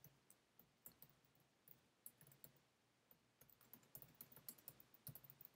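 Faint keystrokes on a computer keyboard: scattered single clicks at first, coming faster about three and a half seconds in.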